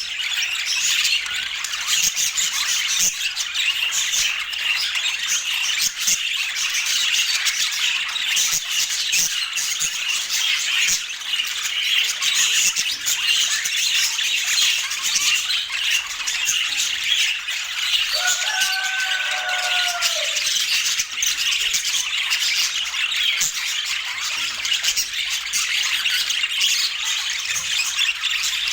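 Budgies chattering and warbling steadily, a dense run of high chirps and squawks, with one lower, drawn-out call about two-thirds of the way through.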